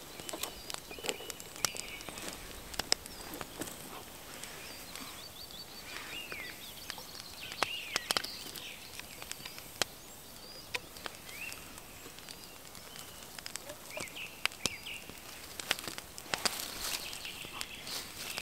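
Birds singing with short chirps in a spring forest, over scattered small clicks and knocks of hands handling camp gear. Near the end, liquid is poured from a small kettle into a wooden cup.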